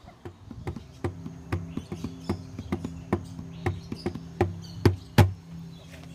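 A pair of hand drums slapped with open palms: a quick, slightly uneven run of beats about three or four a second, the two loudest near the end.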